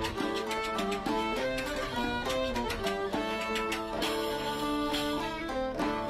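Background music: a quick tune on string instruments, with many rapid plucked notes over held pitches.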